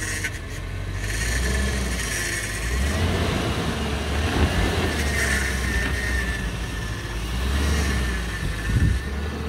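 Land Rover Range Rover L322 crawling slowly uphill over a rocky dirt trail: steady low engine hum, getting louder as it comes closer, with tyres grinding over dirt and stones and a couple of sharp knocks.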